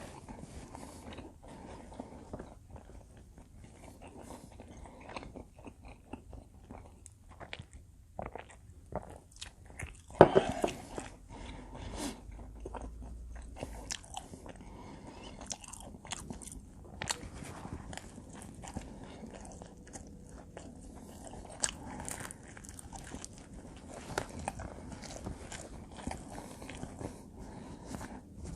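A person biting and chewing combination pizza up close, with crunchy bites and many small clicks. One louder sharp sound comes about ten seconds in.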